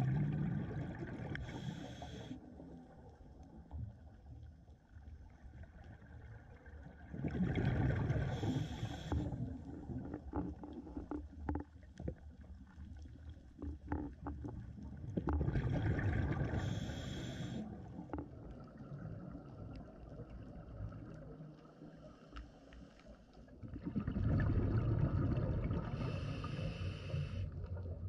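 Scuba diver's exhaled breath bubbling out of a regulator underwater: four bursts of rushing bubbles about eight seconds apart, with quieter stretches and faint clicks between.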